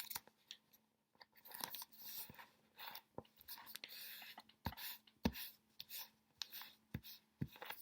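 Origami paper crinkling and rustling as it is folded into a triangle and the fold is creased, in irregular crisp crackles with a few sharper taps in the second half.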